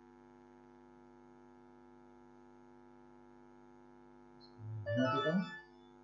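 Faint, steady electrical mains hum with a stack of even, unchanging tones, and a man's voice speaking briefly near the end.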